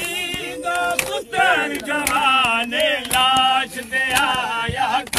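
Men's voices chanting a noha, a Shia mourning lament, with a sung, wavering melody.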